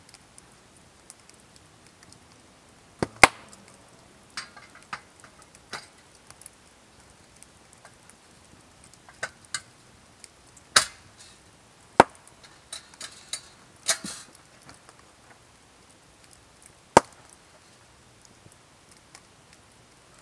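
Sharp knocks and clinks of a metal kerosene lantern being handled and set against a wooden plank table. There are about six loud ones spaced well apart, with lighter taps and rustling between them.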